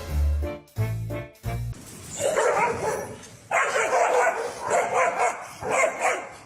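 Upbeat music stops about a second and a half in, then a dog barks over and over in quick runs of barks.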